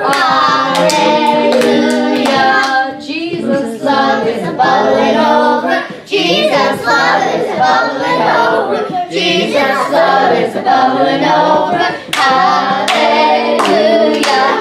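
Several voices, girls and women, singing a song together, with hand claps and slaps in time with it.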